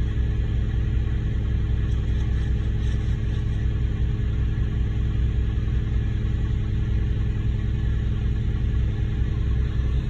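Concrete mixer truck's diesel engine running steadily, a low, even rumble with a steady hum over it.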